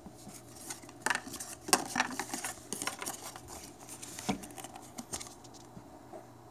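Cardboard product box and its paper insert card being handled and pulled out by hand: a single knock at the start, then a run of small clicks, knocks and rustles for about four seconds.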